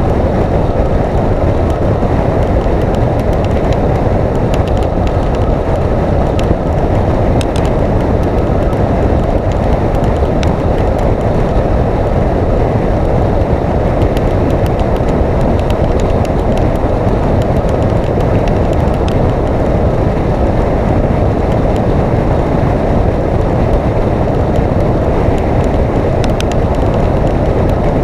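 Steady rush of wind and road noise from a motorcycle cruising at highway speed.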